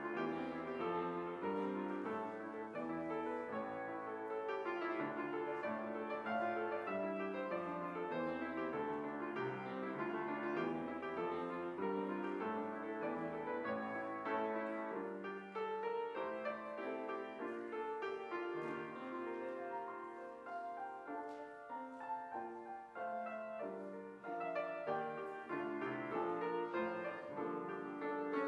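Slow instrumental music played on a keyboard instrument, a continuous run of sustained notes.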